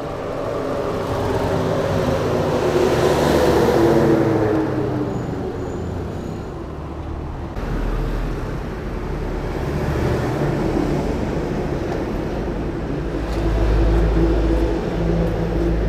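Road traffic at night: vehicle engines running and passing, with an engine tone falling in pitch over the first few seconds. After a sudden change about seven and a half seconds in, the traffic goes on, with a heavier low rumble from a vehicle near the end.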